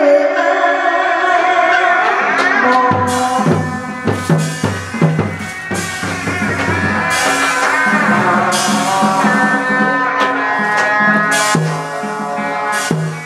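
Hát bội (tuồng) theatre music: a sustained, wavering melody with drum strokes coming in about three seconds in and again near the end.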